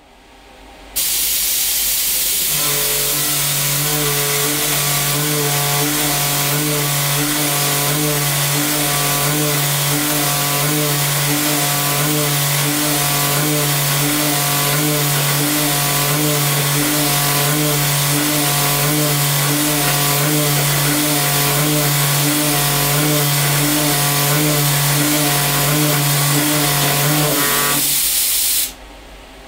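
Brother TC-S2C machining center helically milling SUS304 stainless steel with a Hitachi ASRM2020R-3 cutter in a BT30 holder: a loud pitched cutting hum with several overtones, pulsing about twice a second, over a steady hiss that starts about a second in. The cutting stops a couple of seconds before the end, and the hiss about a second later.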